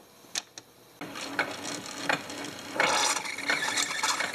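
Two clicks, then a single-serve pod brewer starts up about a second in with a steady pump hum and ticking; from about three seconds in hot water streams louder into a ceramic mug.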